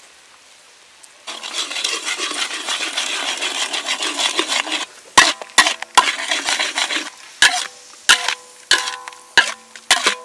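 A spatula stirring a thick sauce in a metal wok. After about a second of quiet there are a few seconds of dense, rapid scraping, then a string of sharp clanks of the spatula against the wok, each ringing briefly.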